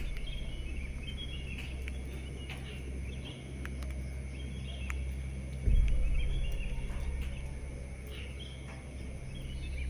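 Evening outdoor ambience with scattered small chirps of birds or insects. About six seconds in, a low rumble starts suddenly and fades away over a few seconds.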